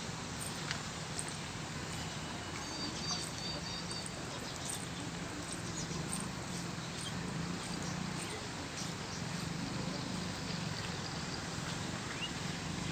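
Steady rain falling, an even hiss broken by scattered sharp drips and taps.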